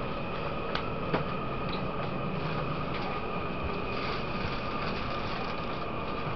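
Interior sound of a Taiwan Railways EMU800 electric multiple unit: a steady rumble with a steady high electrical whine, and two light clicks about a second in.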